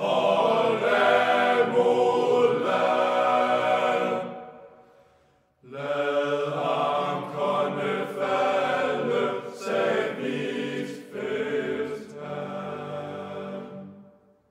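Choir singing slow, sustained phrases of the song. The voices fade out about four seconds in, fall silent for over a second, then come back in and fade away again near the end.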